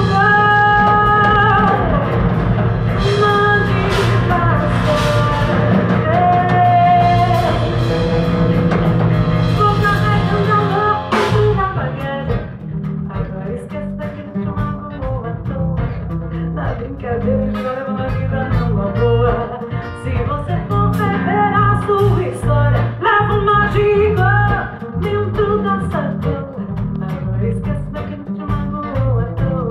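Live band performance of a Brazilian song: a woman singing over guitar, bass and drum kit. About eleven seconds in, the full band drops back to a lighter, guitar-led groove.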